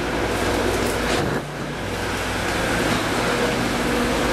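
Steady drone of airport ramp machinery and aircraft, heard inside a jet bridge: a constant hum with several steady low tones under it. It dips briefly about a second and a half in, then carries on.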